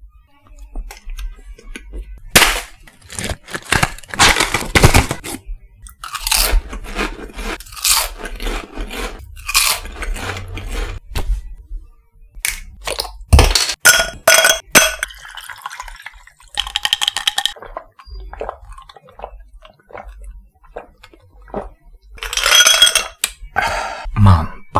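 Close-miked eating: crunchy food bitten and chewed in a long series of loud, irregular crunches, with a few short ringing sounds between them.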